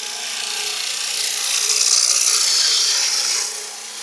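Hissing of a hand-held turning tool taking a light shaving cut on a spinning cherry chair rung on a lathe, the sound coming from the tool's edge. It swells over the first two seconds and fades out after about three and a half.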